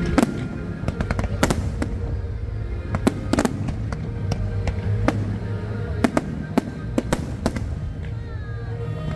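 Aerial fireworks bursting in a rapid, irregular series of sharp cracks and bangs, over the show's music playing steadily underneath.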